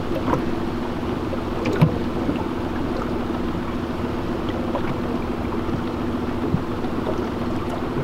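Small boat motor running steadily with a low even hum, and a single light knock about two seconds in.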